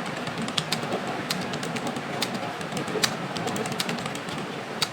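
Computer keyboard keys clicking at an irregular pace, a few sharp clicks a second, over steady background noise.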